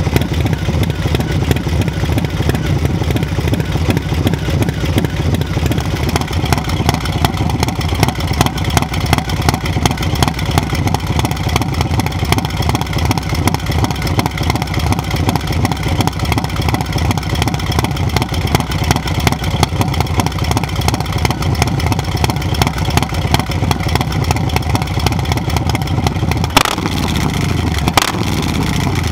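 Harley-Davidson 122 Milwaukee-Eight V-twin with an S&S 475 cam, idling through a Two Brothers Racing exhaust with a raspy note. Near the end the idle is broken by two short throttle blips.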